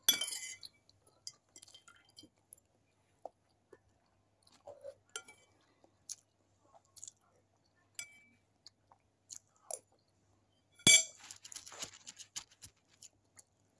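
Close-up chewing and mouth sounds of someone eating noodles and rice, with short clinks of a metal spoon against a stainless-steel plate. One clink comes right at the start, and the loudest comes about eleven seconds in.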